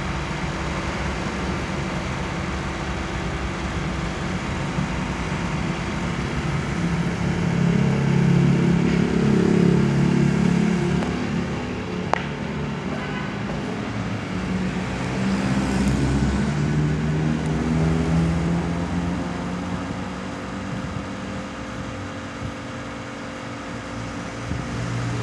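Polytron air conditioner outdoor unit running, a steady hum and whir from its compressor and fan. Twice the low hum swells louder, with a gliding engine-like pitch, and then fades again.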